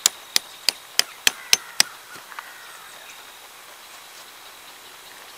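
A quick run of sharp, evenly spaced knocks, about three a second, stopping about two seconds in.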